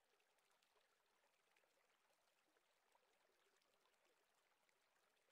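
Near silence: the sound is almost entirely absent, with only a very faint hiss.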